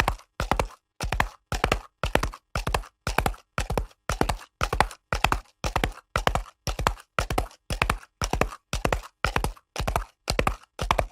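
Horse galloping on concrete: quick clusters of hard hoof strikes in an even rhythm, about two and a half clusters a second.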